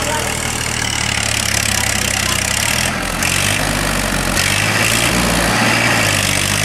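Farm tractor engine running steadily as the tractor pulls on a chain, its note shifting about three seconds in.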